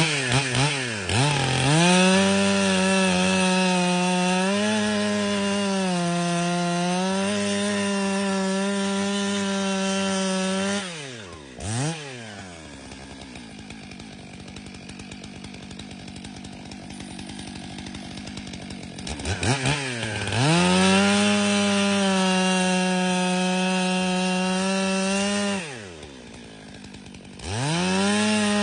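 Stihl MS 661 C two-stroke chainsaw held at full throttle, its note sagging and recovering under load as it cuts through a log for about nine seconds. It drops back to idle, blips, then makes a second full-throttle cut of about five seconds, idles briefly and revs up again near the end.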